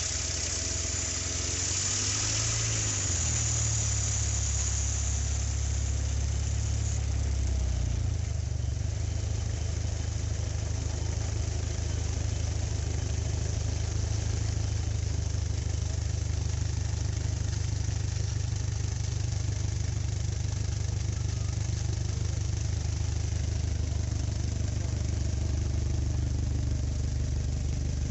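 Antique steam fire engine running steadily as it pumps water through a hose, a low, even hum, with a loud hiss during the first several seconds.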